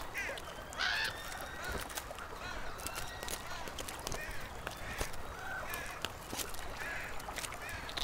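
Crows and ravens calling with short, repeated caws, over scattered sharp clicks.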